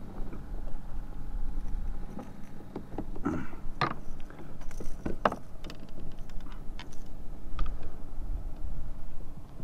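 Wind rumbling on the microphone, with scattered light clicks and knocks from handling a fish and gear aboard a kayak, the sharpest a few in the middle.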